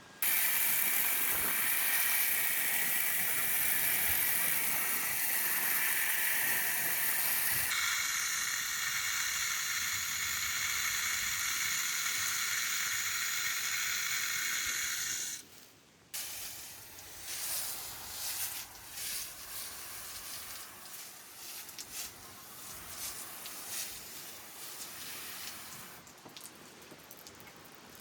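Garden hose spraying water in a steady loud hiss that shifts in tone about a quarter of the way in, then cuts off about halfway through; after it comes a quieter, uneven patter of water falling on leaves and ground.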